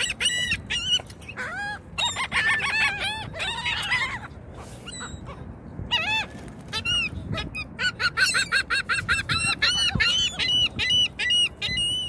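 A flock of laughing gulls calling: many short rising-and-falling notes in quick series. There is a lull a little before the middle, and the calling is busiest near the end.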